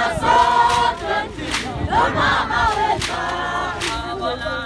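A group of Zulu maidens singing a traditional Zulu song together without instruments, in phrases of held notes, with sharp percussive beats now and then.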